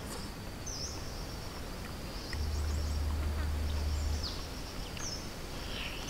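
Forest ambience: an insect drones steadily at a high pitch while birds give several short chirps. A low rumble comes in for about two seconds in the middle.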